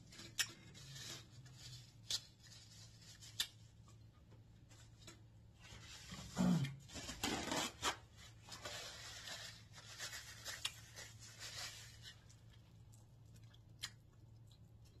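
Snow crab legs being picked apart by hand: scattered sharp clicks and crackles of shell, then several seconds of paper towel rustling. A short hummed 'mm' from the eater about six seconds in.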